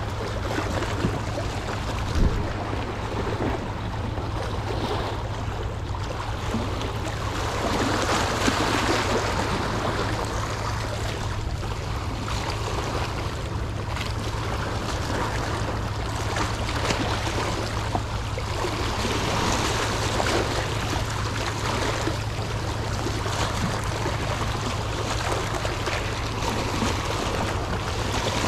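Sea water washing and splashing, swelling up a couple of times, over a steady low hum.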